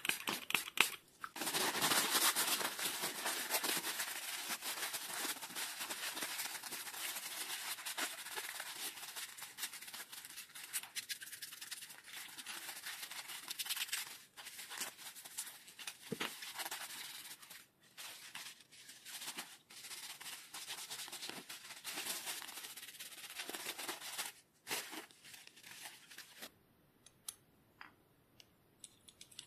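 Steady rough scraping with many small clicks, which gives way after about 25 seconds to a few scattered clicks.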